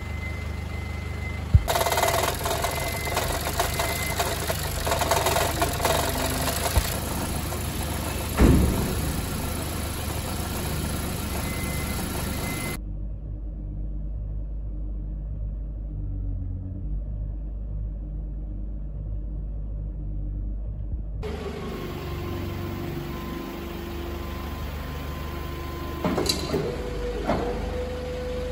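Car engine running at idle, about 1,000 rpm, after a dead battery has been jump-started. The engine runs but has no power on the accelerator, and the check-engine light is on. A few clunks and knocks sound over it, the loudest about eight and a half seconds in.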